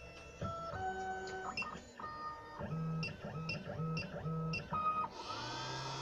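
Computerised key-cutting machine's positioning motors whining in short moves that step in pitch, about five quick even moves near the middle, as the head positions over a tubular key. About five seconds in, the cutter spindle motor starts, spinning up with a rising whine over a steady hum and hiss.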